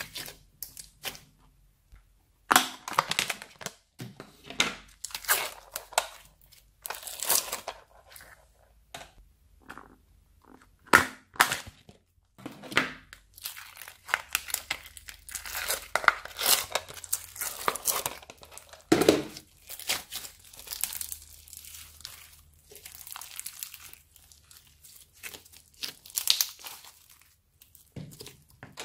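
Hands squishing, stretching and pulling apart thick slime, some of it mixed with sprinkles and small beads, making crackly, sticky tearing and popping sounds in irregular bursts, some louder and sharper than others.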